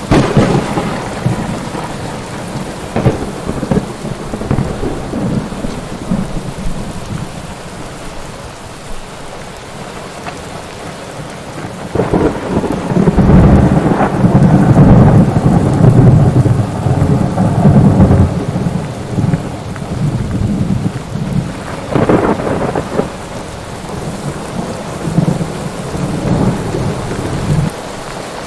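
Thunderstorm: steady heavy rain with rolling thunder, including a long loud low rumble about halfway through and sharper cracks near the start and later on.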